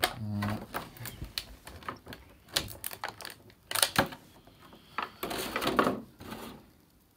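Clear plastic blister packaging clicking and crackling as a thin plastic toy lightsaber blade is taken out of it. There are several sharp clicks, then a longer crinkle about five seconds in.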